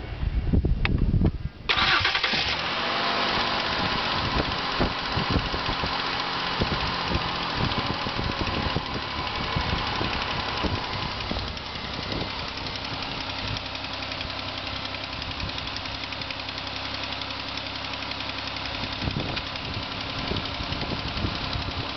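A 2005 Ford Escape's engine starting after a few low thumps, then running with a knock; it settles to a slightly quieter idle about halfway through.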